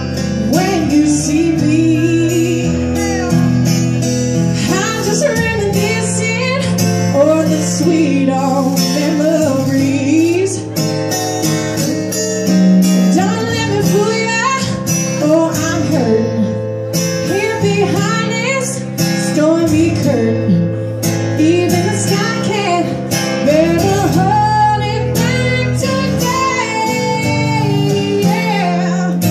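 Live solo acoustic blues: a woman singing over her own acoustic guitar, with long bending, wavering notes above steady strummed chords.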